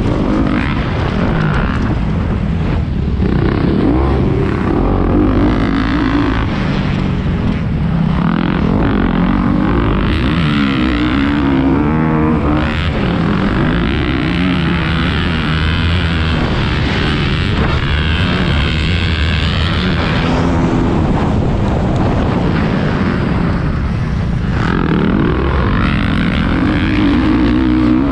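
Motocross dirt bike engine revving hard and falling off again and again as the bike is ridden around the track, its pitch rising and dropping every few seconds.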